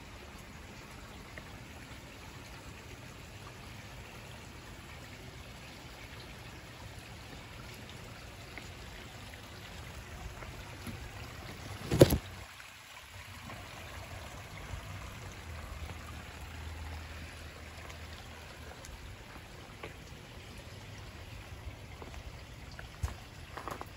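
Steady trickle of water running in a backyard koi pond. About halfway through there is one loud knock as leaves brush against the microphone.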